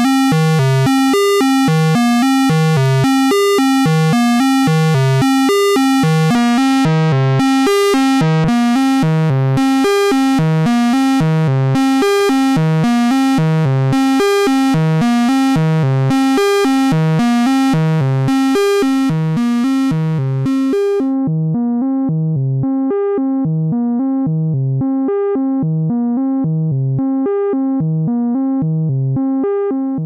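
Eurorack synthesizer playing a repeating sequence of pitched notes through the HS-111 Dystopia Distortion module, giving a buzzy, overtone-rich distorted tone. About 21 seconds in the bright top end drops away and the sequence runs on with a duller sound.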